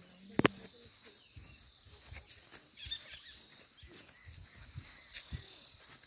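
Insects chirring steadily at a high pitch, with two sharp clicks about half a second in and a few soft knocks scattered through.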